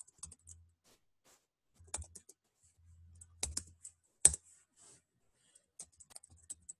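Computer keyboard being typed on in short, irregular key clicks, with a louder keystroke just after four seconds in and a quicker run of light taps near the end.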